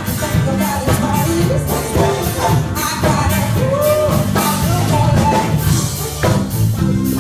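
Live R&B band playing: women singing over a drum kit and electric guitar, with a steady beat.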